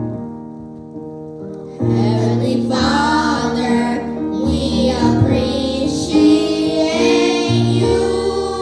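Church keyboard accompaniment with children and women singing a gospel song; the keyboard plays alone, more softly, for the first second or two before the voices and bass come in loudly.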